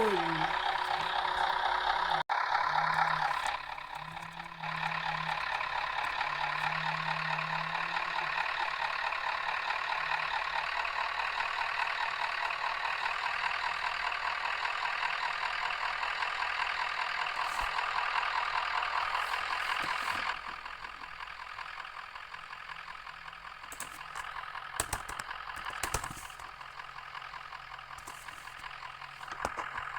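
Cabin sound of a MAZ-105 articulated city bus under way: its diesel engine and drivetrain running steadily with a whine. The sound drops to a quieter level about twenty seconds in, and a few short knocks follow near the end.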